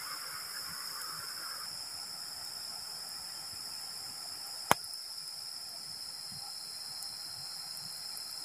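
Steady shrill chorus of night insects, several high-pitched trills held without a break. A lower trill stops after about two seconds, and there is one sharp snap about halfway through.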